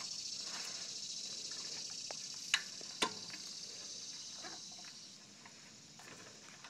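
Two small clicks about half a second apart, with a few fainter ticks, as the throttle linkage and stop screw of a Predator 79cc engine are worked by hand with the engine not running. Under them is a steady high hiss that fades toward the end.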